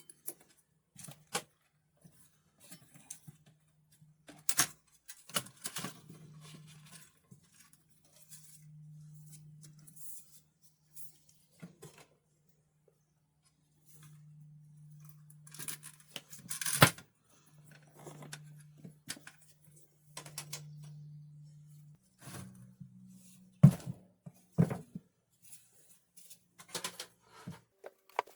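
Hands working on a plastic computer keyboard: scattered clicks, knocks and scraping of plastic parts, with a low hum coming and going in short stretches.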